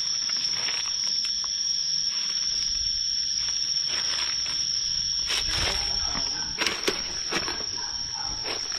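Steady, shrill drone of insects in the garden vegetation, one constant high-pitched note. A few brief clicks come between about five and seven and a half seconds in.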